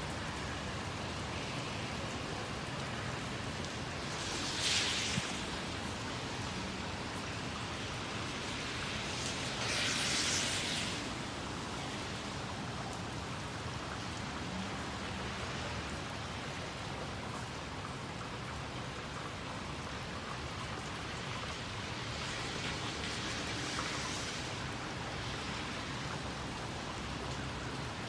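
Steady rain falling, an even hiss, with three brief swells of louder hiss about 5, 10 and 23 seconds in.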